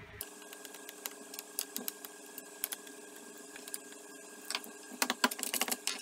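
Light metal clicks and taps of small nuts being spun off threaded rods by hand and set down on a wooden bench, coming faster near the end, over a faint steady hum.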